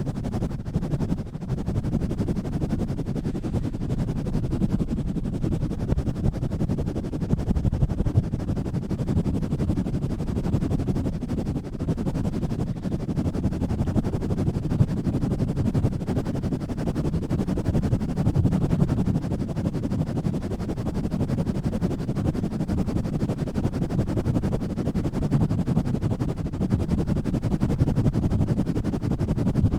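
Hands rapidly pumping, rubbing and scratching directly on an uncovered microphone, giving a continuous, fast, muffled rumbling and scraping that is mostly deep in tone.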